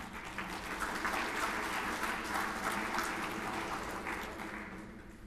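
Audience applauding, building quickly and then dying away about four and a half seconds in.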